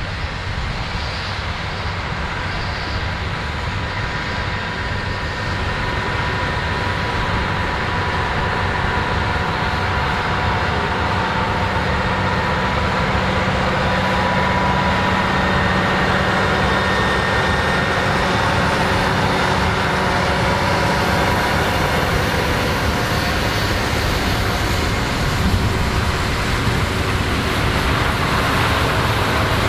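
Big diesel farm tractor, a John Deere 9RX 830, running steadily under load in the field. Its sound grows gradually louder over the first several seconds, with a faint steady whine over the engine.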